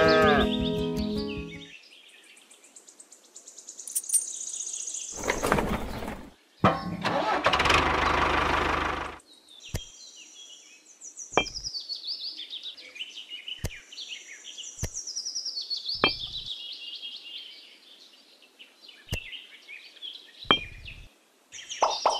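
Birds chirping, with a run of sharp light clicks as miniature clay bricks are set down one by one. Two loud rushing noises come before the clicks, in the first half.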